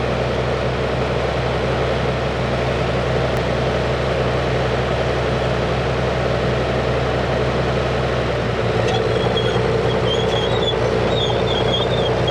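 Tank driving, its engine giving a steady low drone. From about three-quarters of the way in, high-pitched squeaks of the tracks come in again and again over it.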